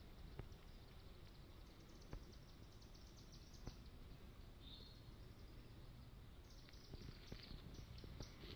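Near silence: faint outdoor ambience, with a brief high bird chirp a little past halfway and a few faint scattered clicks, more of them near the end.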